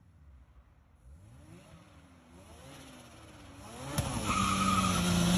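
First-generation Mazda RX-7's rotary engine pulling along the road, its revs rising and dropping several times, then growing much louder as the car comes close about four seconds in, with one sharp crack at that point.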